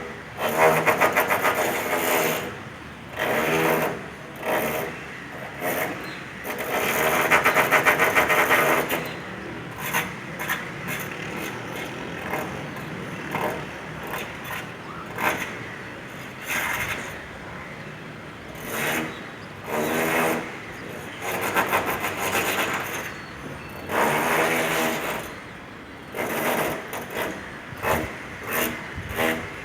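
Electric rotary hammer drill (martelete) running in repeated bursts of a second or two, a fast rattling hammer action over a buzzing motor, with short pauses between bursts.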